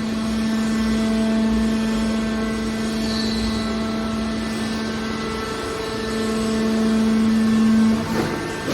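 Aluminium can baler's hydraulic power unit running with a steady pitched hum, which stops about eight seconds in.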